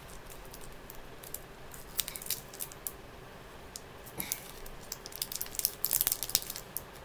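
Crinkling of a plastic sweet wrapper being handled and opened, in scattered sharp crackles that are thickest about six seconds in.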